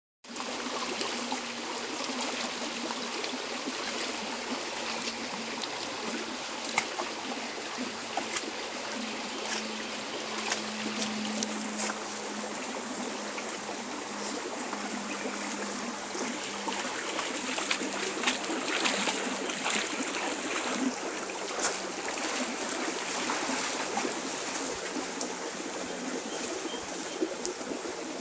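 Shallow creek water running steadily, with scattered small splashes as a miniature pinscher wades and pounces in the water.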